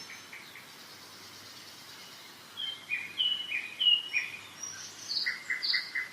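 Songbirds singing in a spring forest over the steady hiss of a mountain river. A faint high trill comes first; about two and a half seconds in, a bird starts a series of short, clear, falling whistles, about two a second, and near the end it breaks into a quick run of short notes.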